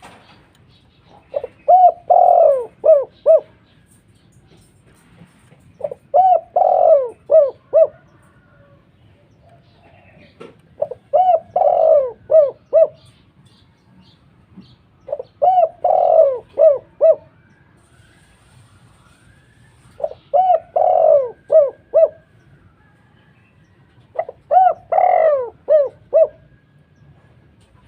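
Doves cooing: six short phrases of quick, rolling coos, one about every four and a half seconds.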